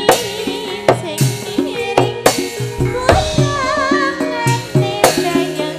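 Live Javanese tayub music: a woman sings into a microphone with a wavering vibrato, over hand-drum strokes and held notes from the accompanying ensemble. Sharp drum hits fall about once a second.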